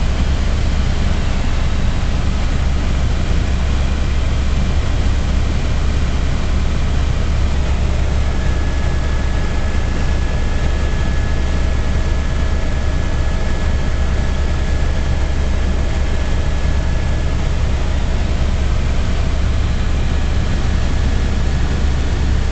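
Helicopter in flight heard from inside the cabin: a loud, steady drone, with a faint thin high tone in the middle stretch.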